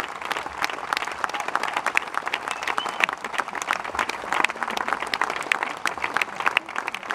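Concert audience applauding: many hands clapping at once in a dense, even stream.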